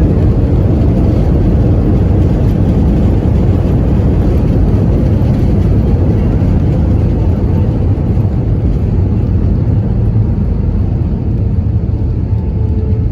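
Steady, loud low rumble inside the cabin of an Airbus A320, from its jet engines and the airflow around the airframe. A faint steady whine comes in near the end.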